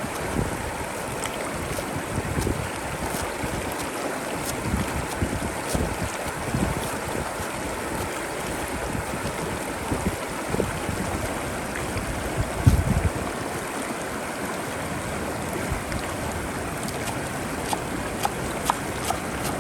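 Steady rushing outdoor ambience with wind buffeting the microphone in low gusts, one stronger gust about two-thirds of the way through, and scattered light clicks.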